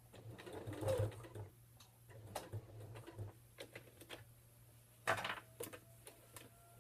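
Janome sewing machine stitching slowly in short starts and stops, with irregular ticking from the needle and cloth rustling as the fabric is guided under the foot. There is a louder rustle about a second in and a sharp click about five seconds in.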